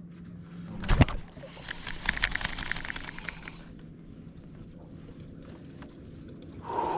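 A single loud thump about a second in, followed by about two seconds of rapid clicking, over a faint steady low hum.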